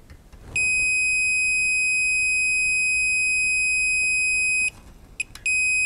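A steady high-pitched electronic beep held for about four seconds, then a brief blip, and the same beep starting again near the end.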